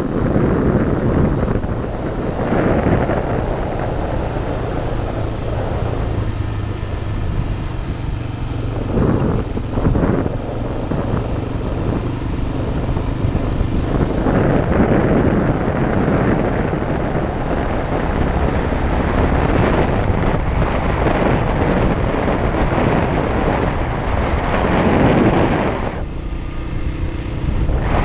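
Motorcycle engine running steadily while the bike rides along a dirt track, mixed with loud wind noise on the microphone that swells and eases every few seconds.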